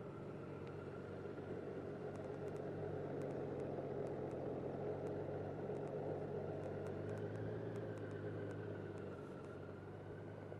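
2021 Honda Gold Wing's flat-six engine running at low revs as the big touring motorcycle is ridden slowly through tight turns, growing louder as it passes close by around the middle and fading again near the end.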